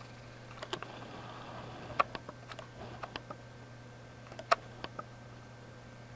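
Scattered light clicks and taps, about a dozen at irregular intervals, the loudest two about two seconds and four and a half seconds in, over a faint steady low hum.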